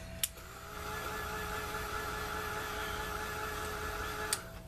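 Handheld electric heat tool switched on with a click, running with a steady rush of air and a whine for about four seconds, then switched off with a click.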